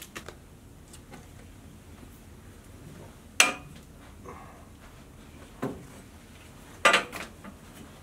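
Three sharp metallic knocks at uneven intervals, the loudest about three and a half seconds in and the last a quick cluster near seven seconds, like metal wall framing being handled.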